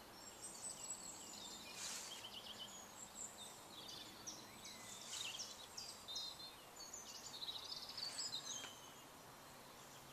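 Songbirds singing: a busy mix of short, high chirps and trills from several birds, fading toward the end.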